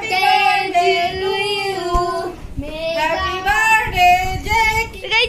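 German Shepherd howling in two long, wavering calls, with a short break about halfway.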